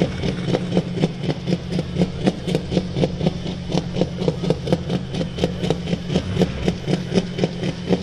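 Super stock pulling tractor's diesel engine idling with an even, lopey pulse about four times a second, waiting at the line before the pull.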